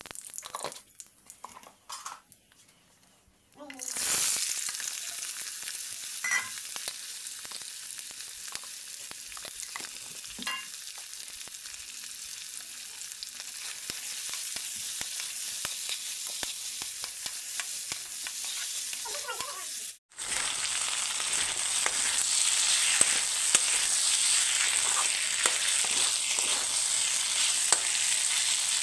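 Cut new potatoes frying in hot oil in an aluminium wok. There are a few faint crackles at first, then a loud steady sizzle starts about four seconds in as the potatoes hit the oil. The sizzle carries on, with a spatula scraping and clicking against the pan as they are stirred.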